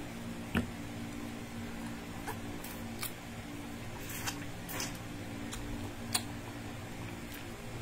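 Cooked crab being eaten by hand: a handful of short sharp clicks and cracks of shell being broken and picked apart, the loudest about half a second in, with soft sucking and chewing of the meat, over a steady low hum.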